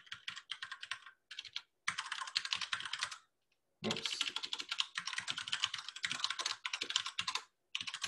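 Fast typing on a computer keyboard: rapid runs of keystrokes in bursts, with a pause of about half a second a little over three seconds in.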